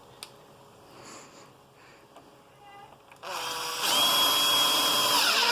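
A power drill driving a screw into the wooden leg, starting a little past halfway and running steadily at speed, its motor a steady whine.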